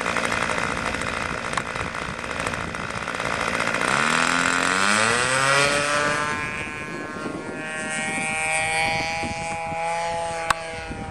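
Radio-controlled model airplane's engine running at low throttle, then opening up with a rising pitch about four seconds in for the takeoff roll, and running steadily at high throttle as the plane climbs away. A single sharp click near the end.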